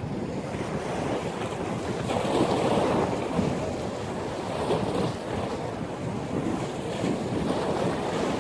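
Ocean surf breaking in a strong windstorm, with wind blowing across the microphone. The noise swells louder about two seconds in.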